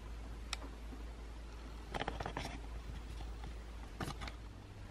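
Faint handling noise: a sharp click about half a second in, then two short bursts of clicking and rustling about two seconds apart, over a steady low hum.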